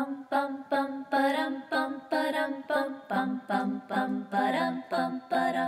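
Intro music of a cappella voices singing short, detached syllables in a steady rhythm, about two notes a second.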